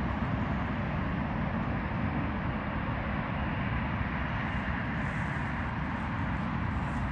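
Boeing 787-10 jet engines running at taxi power, heard at a distance as a steady rushing noise over a low rumble.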